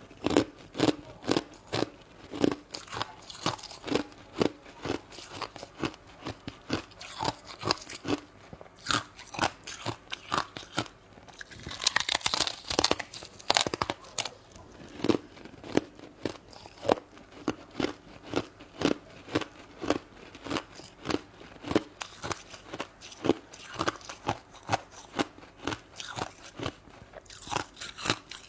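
Close-up chewing of crunchy shaved ice: a steady run of crisp crunches, about two a second. Louder, fuller crunches come about twelve seconds in and again near the end.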